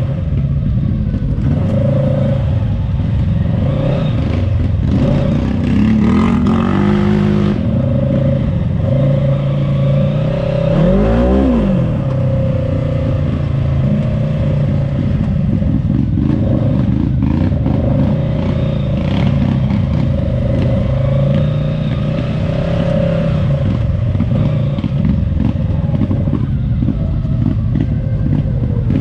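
Polaris RZR side-by-side engine running steadily under way, with rattling and knocks from the ride over rough ground. Around the middle there is a brief sweep up and down in pitch.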